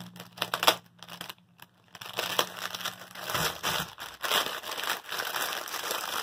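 Thin plastic bags of diamond painting drills crinkling and rustling as they are handled in the hands. The sound is sparse and clicky at first, then denser from about two seconds in.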